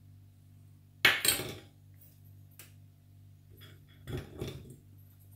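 Kitchen dishes clattering against a stainless steel pot as banana pieces are tipped in: a sharp metal clink about a second in and a softer rattle around four seconds in.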